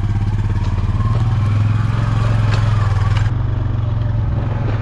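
Engine running steadily at an even pitch, with a low pulsing hum.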